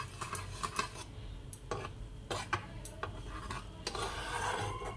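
A flat metal spatula stirs and scrapes through a boiling cream sauce in a frying pan, clicking and scraping against the pan. The strokes come quickly in the first second, then more spaced out.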